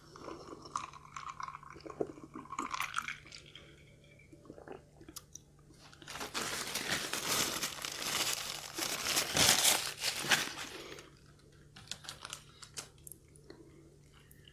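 A few small sips and swallows from a mug, then a paper tissue rustling and crumpling against the nose and face for about five seconds, the loudest part. Near the end comes light crackling as a crispy fried chicken piece is pulled apart by hand.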